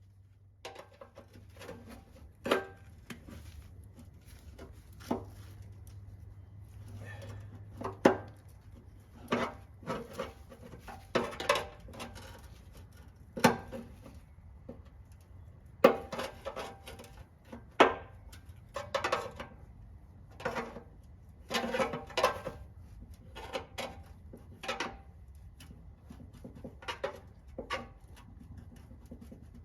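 Hand tools and metal parts clinking and knocking at irregular intervals, a sharp strike every second or two, over a faint low hum.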